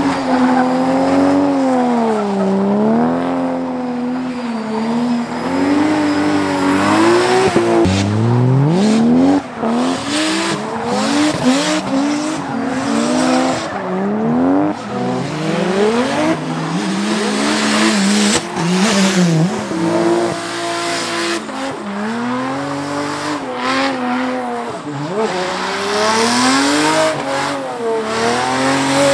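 Drift car engines revving hard, their pitch rising and falling again and again as the cars slide, with tyres squealing and spinning against the pavement.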